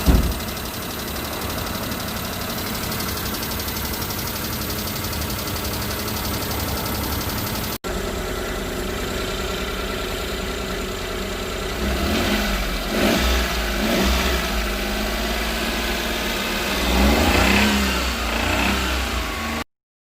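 Daihatsu Hijet kei truck engine running with the abnormal engine noise it came in for, which is being chased as a valve clearance (tappet) problem. It idles steadily, then is blipped several times in the second half, rising and falling in pitch.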